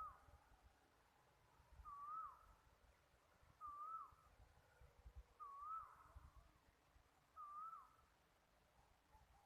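A bird giving a short, faint whistled call about five times, roughly every two seconds; each call twists up and down and then drops away.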